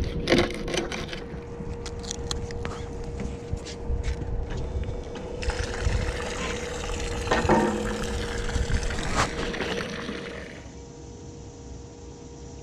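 Bait knife chopping skipjack herring into cut bait on a boat's bait board: a run of sharp knocks as the blade hits the board, then several seconds of rushing, splashy noise, over a steady low hum. Near the end the sound drops to a quieter background.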